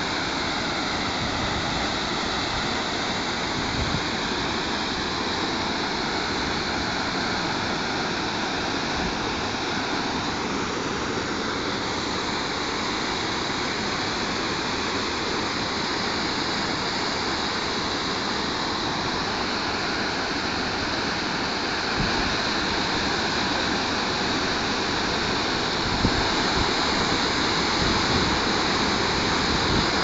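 Usri Falls waterfall: a steady, even rush of water pouring over rocks.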